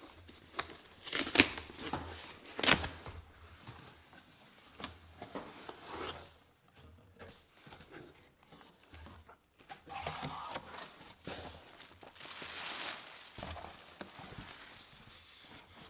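Box and packaging of a DaVinci Resolve Speed Editor being opened and handled: crinkling, tearing and rustling. There are two sharp snaps in the first few seconds and longer rustling later on.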